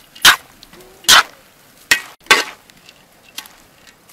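Metal spatula scraping against a large wok while stir-frying a batch of rice and noodles: four loud scraping strokes in the first two and a half seconds, then a fainter one.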